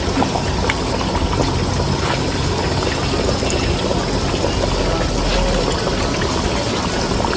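Large pot of meat gravy and water boiling hard, a steady bubbling over a constant low rumble. The water has come back to a full boil, ready for the rice to go in.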